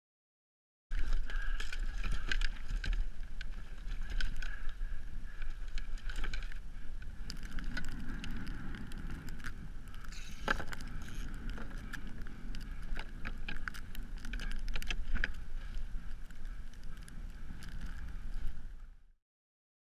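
Water and wind noise on a kayak on open water, dotted with frequent clicks and rattles of gear. It starts about a second in and cuts off abruptly near the end.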